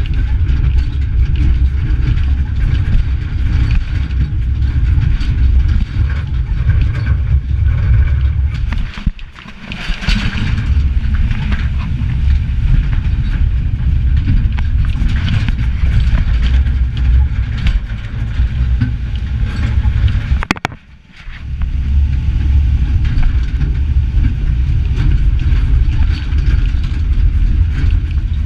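Heavy low rumble of a truck driving over a bumpy dirt road, heard from on board: engine and road noise with rattling. It dips away briefly twice, about nine and twenty-one seconds in.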